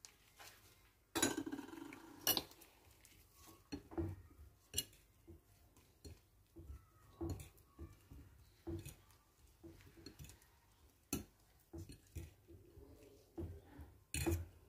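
Metal fork clinking and tapping against a ceramic bowl while mixing tempeh strips with beaten egg and flour, in irregular taps and scrapes. A couple of louder knocks come about a second and two seconds in, and another just before the end.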